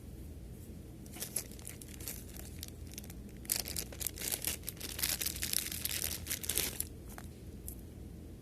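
Packaging being crinkled and torn open by hand. Scattered light rustles, then a burst of dense crackling from about three and a half seconds in until nearly seven seconds.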